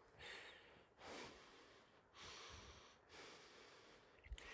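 A man's faint breathing, four breaths about a second apart, with a small knock near the end.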